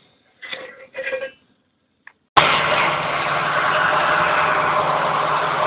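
Electric two-way honeycomb uncapping machine running steadily with a low hum, cutting in abruptly about two seconds in. Before it there are two brief, faint clatters.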